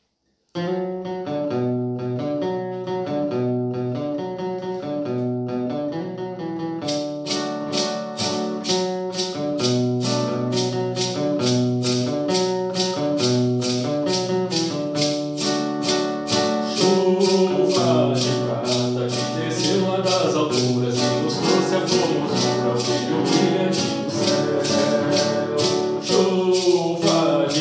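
Acoustic guitar playing a hymn intro; about seven seconds in, a shaker joins with a steady rhythm of about three shakes a second, and from about seventeen seconds a voice sings the hymn over guitar and shaker.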